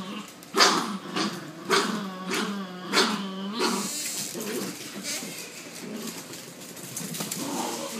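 Two puppies, one of them a miniature pinscher, growling and barking as they tug and shake a bra between them. The growling is loud, with sharp bark-like peaks, for about the first four seconds, then quieter.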